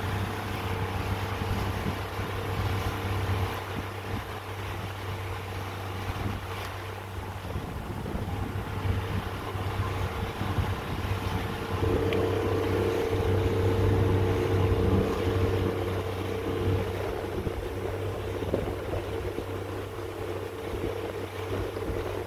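Small motorboat under way: its engine runs steadily over the rush of water and wind. The engine tone grows louder about halfway through and stays up for a few seconds.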